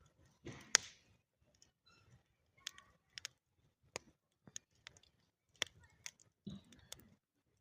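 Wood fire crackling: irregular sharp pops and snaps from burning firewood, the loudest one a bit under a second in.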